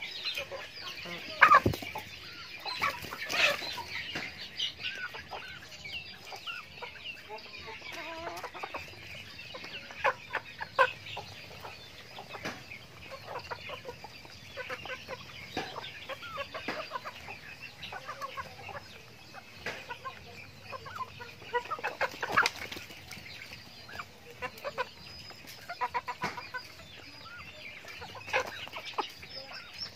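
A flock of chickens clucking as they feed, with frequent sharp taps of beaks pecking feed from a split-bamboo trough. The loudest taps come about a second and a half in and again about twenty-two seconds in.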